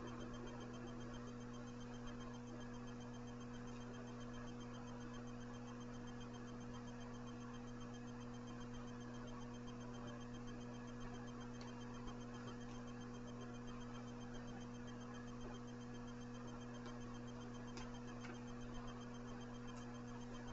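Steady low electrical mains hum with faint background hiss. A few faint ticks come in the second half.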